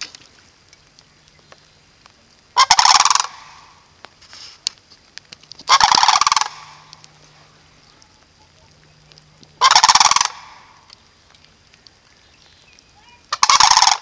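Sandhill cranes calling: four loud, rattling calls, each under a second long, spaced three to four seconds apart.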